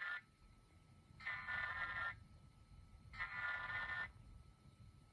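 Emergency Alert System SAME digital data bursts: harsh, buzzy two-tone data squeals about a second long, repeated about every two seconds, one ending just after the start and two more following.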